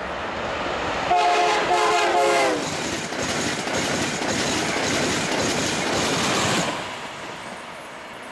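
A passing train sounds a multi-tone horn in two blasts, the second bending down in pitch as it goes by, followed by the loud rush of the train passing at speed, which fades away near the end.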